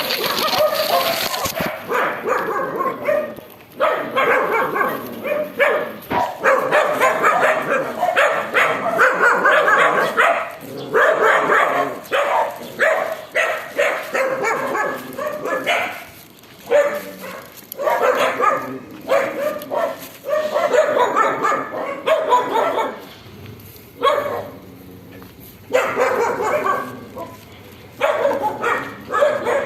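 Dogs barking and yelping over and over, in a long run of short calls with a few brief pauses.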